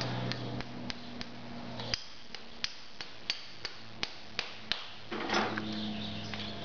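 A farrier's hammer tapping at a horse's shod hoof: a run of about a dozen light, sharp taps at roughly three a second, followed by a brief scrape about five seconds in.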